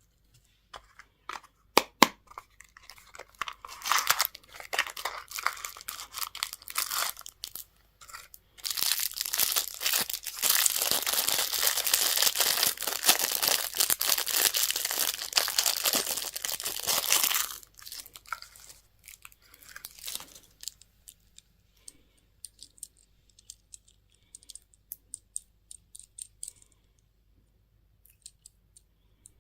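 Candy or toy packaging being torn open and crinkled by hand. It starts with a few sharp clicks, builds to a long stretch of dense crinkling and tearing through the middle, then dies back to scattered small clicks and rustles.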